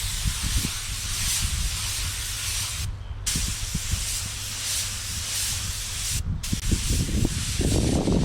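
Paint spray gun hissing with compressed air in long passes, cut off briefly twice as the trigger is let go.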